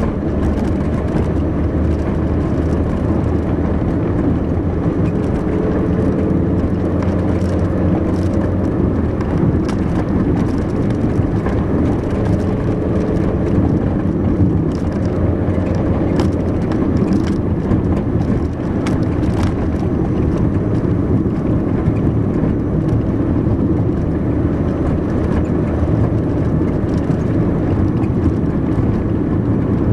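A car driving steadily along a country road: a steady low engine hum and tyre and road noise, with a few light ticks or rattles in the middle.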